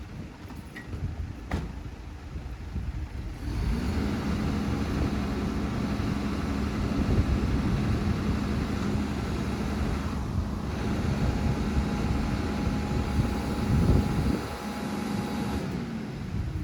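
Engine of a road-rail crane truck running close by: it grows loud about three and a half seconds in and holds a steady low hum, easing off shortly before the end.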